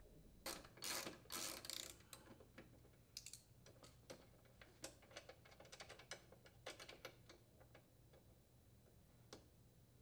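Faint, irregular clicks and light rattles of a socket tool turning out bolts from a lawn mower's shroud, denser in the first two seconds.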